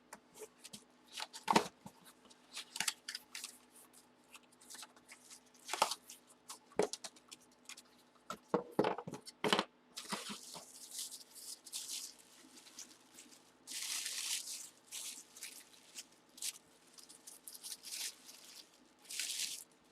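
Packaging being handled and opened by hand to get at a baseball: scattered clicks and knocks, with crinkly rustling and tearing, the longest rustle about two-thirds of the way in.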